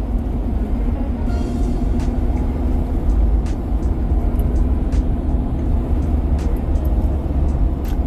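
Ford Super Duty pickup cruising on the open road, heard from inside the cab: a steady low rumble of engine and tyres with road hiss, and a few faint ticks.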